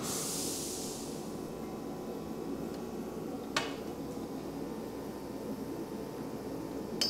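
Steady shop background hum with a short hiss at the start, then two sharp metallic clicks from parts and tools being handled, one about three and a half seconds in and one near the end that rings briefly.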